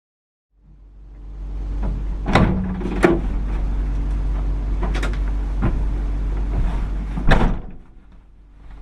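A vehicle running with a steady low hum, with several sharp knocks over it, the loudest about two and a half seconds in and again near the end. It fades in after a moment of silence and fades down shortly before the end.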